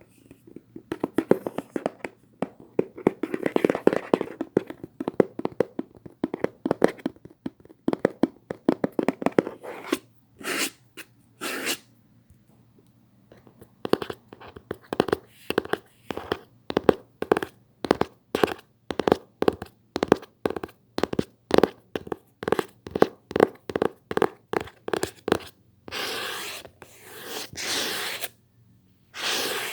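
ASMR tapping on a hard surface: rapid runs of taps, then an even beat of about two to three taps a second. Several longer scratching or rubbing strokes come near the end.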